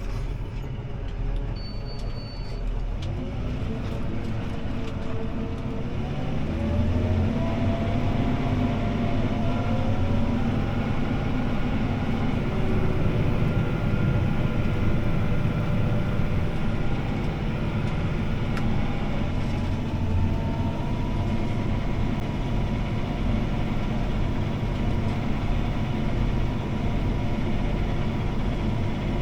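CLAAS ARION 650 tractor's six-cylinder diesel engine and drivetrain running, heard inside the cab. A whine climbs in pitch over the first several seconds as the engine takes up speed and grows louder, then settles into steady running.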